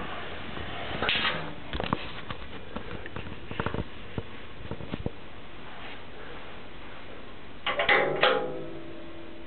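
Scattered light clicks and knocks of handling, then a louder scraping rustle about eight seconds in as a hand works the plough lamp switch on the tractor's mudguard.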